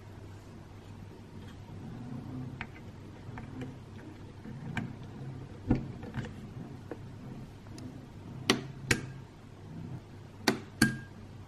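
Small hard-plastic clicks and taps as tiny Polly Pocket figures are handled and pressed into place on the 1993 Bay Window House playset. Two pairs of sharper clicks come near the end, over a low steady hum.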